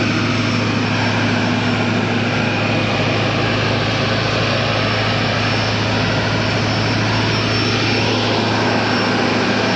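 2002 Chevy Silverado's Duramax 6.6-litre V8 turbodiesel idling with a steady drone, heard with the hood up.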